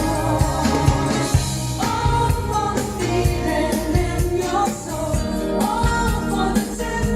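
A pop song with a singing voice over a steady drum beat, played through a pair of JBL LX70 three-way tower speakers.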